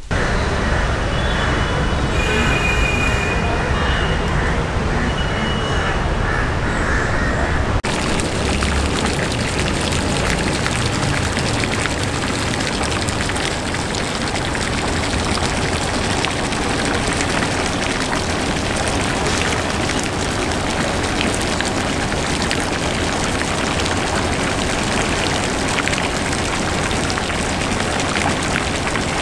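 A fountain's water stream splashing steadily into a swimming pool. About eight seconds in the sound turns brighter and fuller.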